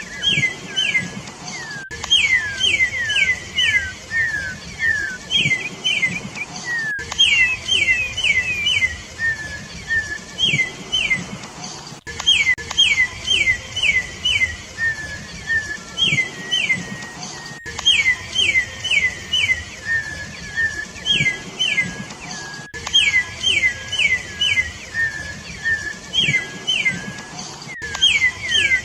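Campo troupial (corrupião) singing: phrases of three to six short, clear whistled notes, each falling in pitch, repeated with brief pauses between them.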